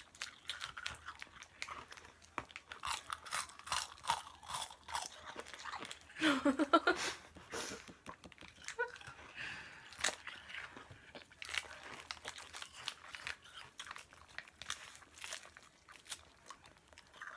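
Frozen freezer pops being bitten and chewed: many small, sharp crunches of ice, close to the microphone. A short burst of voice about six seconds in.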